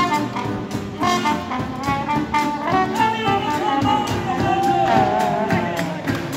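Street jazz band playing upbeat swing: saxophones and trumpet carry the tune over a sousaphone bass line and a steady beat.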